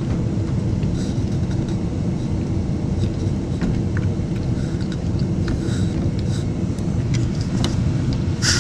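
Steady low rumble in the background, with scattered light clicks and taps as hoses and plastic fittings are worked onto a washer's dispenser diverter valve, and a brief rustle near the end.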